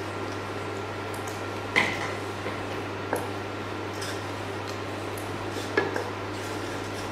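Wooden spatula stirring shallots and butter in a stainless steel saucepan, knocking sharply against the pan three times (about two seconds in, three seconds in and near the end), over a steady low hum.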